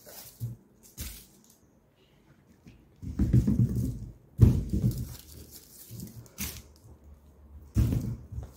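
Potatoes being set down one at a time onto the lower tier of a plastic vegetable rack: a series of separate soft knocks and handling rustles, with a sharp click about six and a half seconds in.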